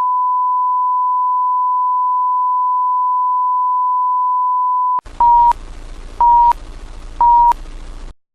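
A steady pure test tone for about five seconds that cuts off sharply. Then comes a hiss with three short beeps of the same pitch, one a second: a tone-and-countdown leader of the kind that opens a video.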